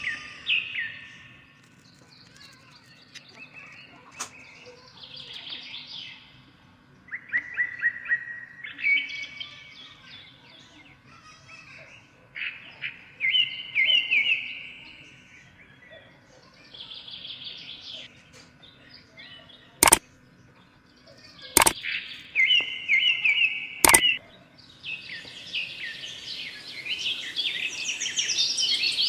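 Songbirds chirping and singing in short, repeated phrases. Three sharp clicks come in the second half, and the chirping grows denser and higher near the end.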